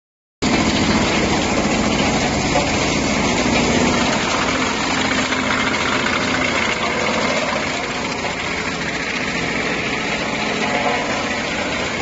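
Large electric-motor-driven industrial wood chipper running steadily and chipping tree branches: a loud continuous mechanical noise with a low hum underneath.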